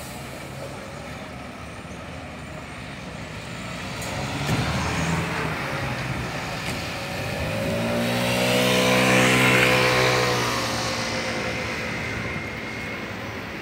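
A motorcycle approaching and passing close by, its engine note growing loud about nine seconds in, then falling slightly in pitch and fading as it goes away, over a steady street background.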